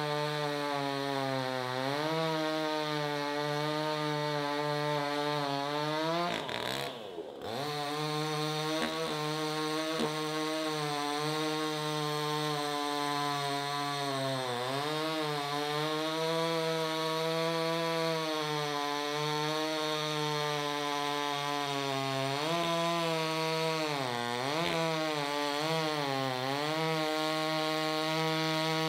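Gas chainsaw at full throttle, cutting through a thick log. Its engine pitch sags under load several times and drops off briefly about seven seconds in.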